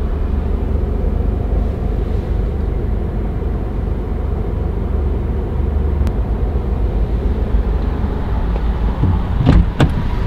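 A pickup truck idling, heard from inside the cab as a steady low rumble. Near the end there are sharp knocks as the driver's door is opened.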